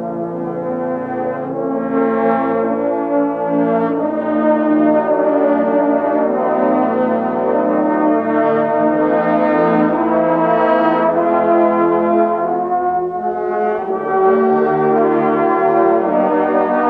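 Massed trombone choir playing slow, sustained chords that swell louder about two seconds in.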